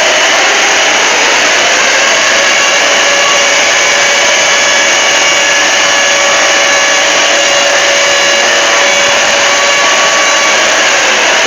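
Mock emergency alert system alarm, heavily distorted into a harsh, steady wall of noise with faint tones buried in it, held at a constant very loud level; pitch glides come through near the start and near the end.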